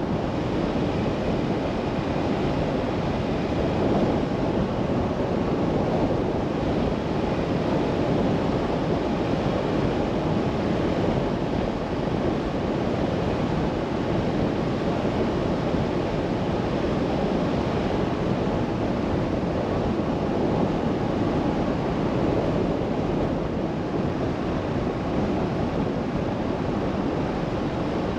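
Steady road noise of a car driving on a country lane: tyres on tarmac and wind around the body make an even rush with no distinct engine note.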